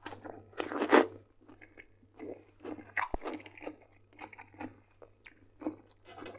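Close-up crunching bite into a fresh cucumber, loudest about a second in, followed by wet chewing that goes on in short irregular bursts. A single dull knock comes about three seconds in.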